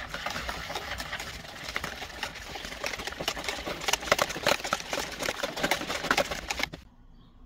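Wire whisk beating a runny egg-and-yogurt mixture in a plastic bowl: fast, dense clicking and scraping of the wires against the bowl. It stops abruptly near the end.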